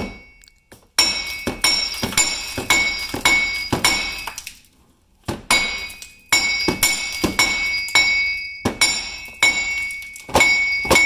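Hammer blows on a seized, dry-worn wheel hub bearing assembly to knock it loose: sharp metal-on-metal strikes with a ringing tone, about two a second, with a short pause a little before halfway.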